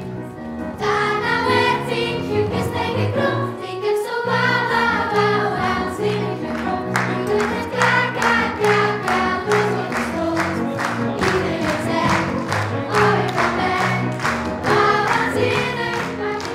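A group of children singing a pop song in unison over instrumental backing with a steady beat.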